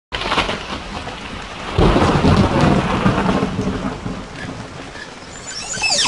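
Thunderstorm: steady rain with a roll of thunder that comes in loudly about two seconds in and rumbles away over the next few seconds.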